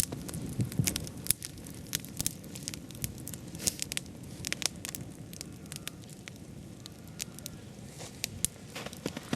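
Wood campfire crackling, with irregular sharp pops and snaps over a low steady rush.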